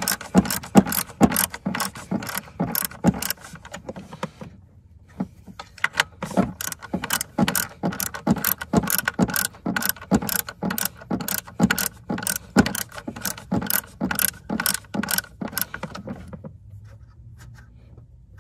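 Hand ratchet clicking in quick, even strokes, about three clicks a second, as it backs out small 8 mm bolts. There is a short pause about four and a half seconds in, and the clicking stops shortly before the end.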